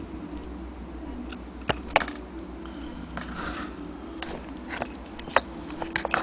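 Brass mantle clock movement being handled by hand: a few irregular sharp metal clicks and taps as it is turned over and its levers touched, the loudest about two seconds in and again past five seconds, over a steady low hum.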